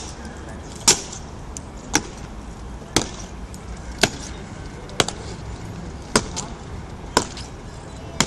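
Honour guard's boots striking the stone paving in a slow ceremonial march, one sharp stamp about every second.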